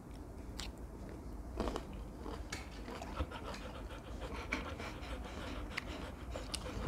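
Rottweilers panting, mixed with soft chewing and small wet mouth clicks as fruit is eaten.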